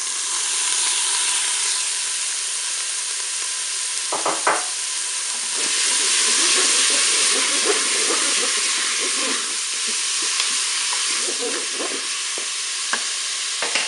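Minced beef and onions sizzling in the hot non-stick bowl of a Moulinex Cookeo multicooker on its browning setting, while a wooden spatula stirs and scrapes through the meat. The steady sizzle grows louder about five seconds in, with a few short knocks from the spatula against the bowl.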